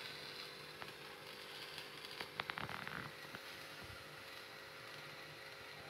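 Faint steady hiss of a gas stove burner flame with a low hum, and a short cluster of light clicks about two and a half seconds in, from the skewer knocking against the wire grill.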